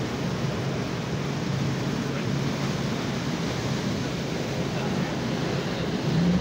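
Mercury outboard motor driving a small boat under way, with wind and rushing water over it. About six seconds in the engine note jumps louder and steadies as the throttle opens.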